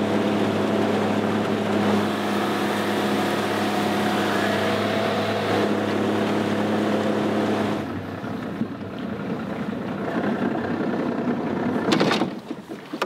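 Outboard motor on an aluminium jon boat running steadily under way, then dropping to a quieter, lower running about eight seconds in as the boat slows. A few sharp knocks near the end.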